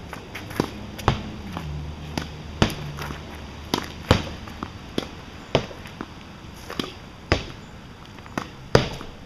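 Tennis ball being hit with a racket against a barn wall and bouncing on the pavement: about a dozen sharp knocks, often in pairs about half a second apart, with footsteps scuffing on the pavement between them.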